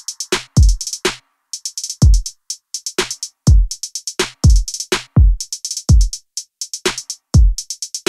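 Electronic background music: a drum-machine beat of deep kick drums falling in pitch, with quick crisp hi-hat and snare hits between them.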